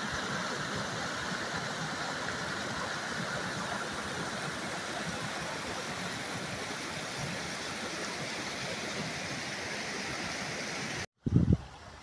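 Steady rush of a rain-swollen stream spilling over rock ledges as a small waterfall, the water in spate after rain. It cuts off suddenly about a second before the end, and what follows is fainter, with irregular low thumps.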